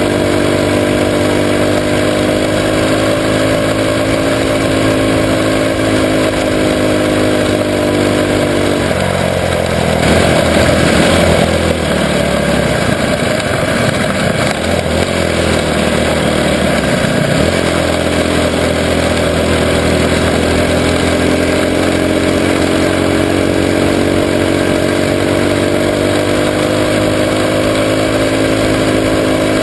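Junior sprint car's engine running hard at high revs, heard from on board, its pitch sagging and climbing again with the laps. For several seconds in the middle a second car's engine alongside mixes in, and the sound turns rougher and briefly louder.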